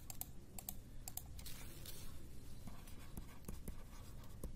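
Faint clicks at a computer, several close together in the first second or so, then light scratching of a stylus writing by hand on a tablet.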